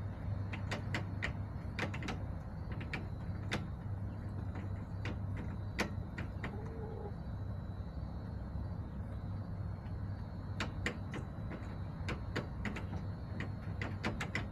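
Chickens pecking at a hard surface: clusters of sharp taps and clicks, a few at a time, over a steady low hum.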